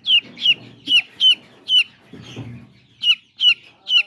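Young chickens peeping loudly: a string of short, high chirps that drop in pitch, roughly two a second, with a brief lull in the middle.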